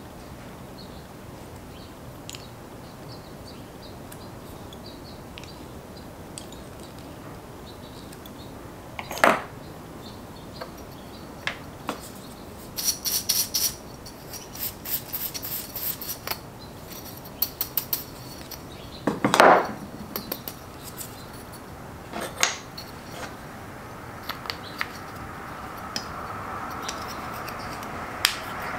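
Hands handling small tools and sea urchin shells on turned wooden spindles on a wooden workbench: scattered light clicks, taps and scrapes, a quick run of sharp clicks, and two louder knocks. A steady hum rises near the end.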